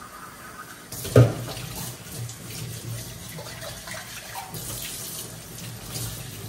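Kitchen tap running into a stainless steel sink while dishes are rinsed under the stream. A single sharp knock about a second in.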